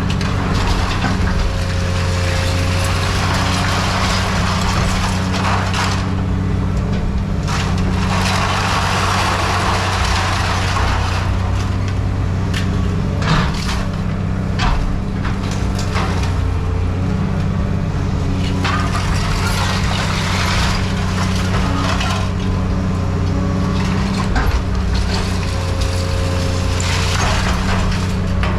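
Heavy scrapyard machine's diesel engine running steadily under load, with stretches of scrap metal being crunched and scraped and a couple of sharp knocks.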